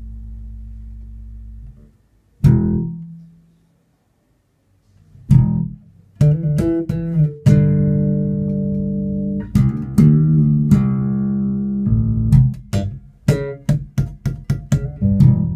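Yamaha TRBX604FM electric bass played with the fingers through a Markbass Little Mark 4 head and Traveler 102P cabinet. A held note dies away and a single sharp note rings out after a short silence. After another pause comes a phrase of held notes, ending in a quick run of plucked notes.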